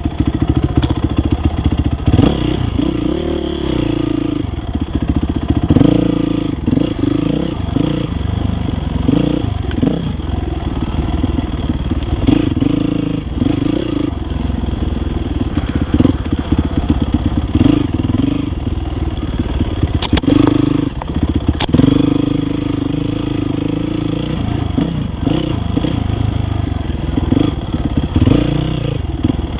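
Dirt bike engine running under load on a trail, its revs rising and falling constantly as the rider works the throttle, with two sharp knocks about two-thirds of the way through.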